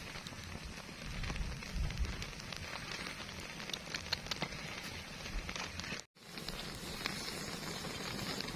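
Open wood fire crackling, with many small pops over a steady hiss. It breaks off for an instant about six seconds in.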